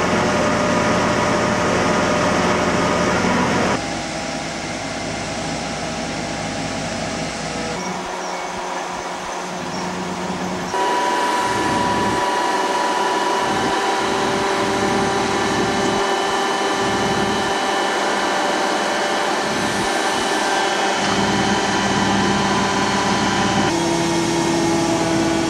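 A loud, steady machine drone with several held humming tones, shifting suddenly in pitch and level a few times.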